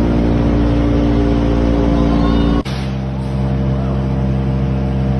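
Wood chipper's engine running steadily at speed. About two and a half seconds in the sound breaks off for an instant and carries on at a different, steady running pitch.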